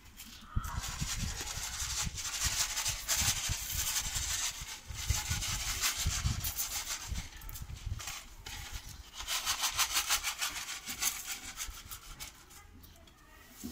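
Granular 15-15-15-15 compound fertilizer being scooped and scattered by hand over loose soil: a dry, rattling hiss of many pellets in two long spells, the second fading out near the end, with low thuds underneath.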